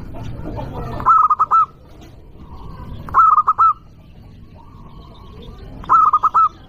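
Zebra dove (perkutut) singing its cooing song: three short phrases of a few quick notes each, spaced about two and a half seconds apart.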